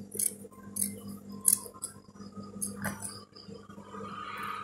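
Scissors snipping loose threads off sewn fabric: a string of short, irregular clicks over a low steady hum.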